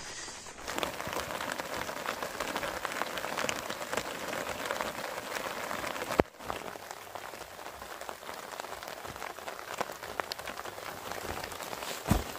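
Rain falling on a tent's nylon fly, a dense steady patter of drops, broken by a sharp click about six seconds in and a short knock near the end.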